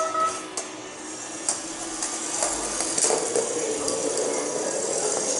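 Sphero Star Wars toy droid: a short electronic beep, then its electric drive motor whirring steadily with light clicking and rattling as it rolls on a hardwood floor.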